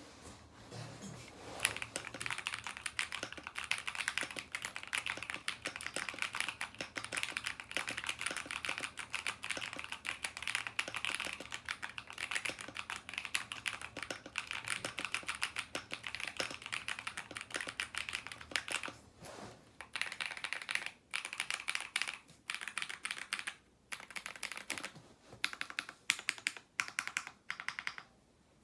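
Typing on a Blade 65 mechanical keyboard with Neapolitan Ice Cream switches: a fast, continuous stream of key clicks that breaks into shorter bursts with brief pauses in the last third.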